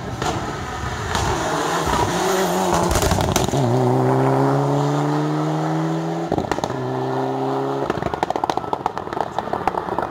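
Rally car engine under hard acceleration, its pitch rising steadily for a couple of seconds, then holding briefly. Near the end comes a rapid run of sharp crackles and pops.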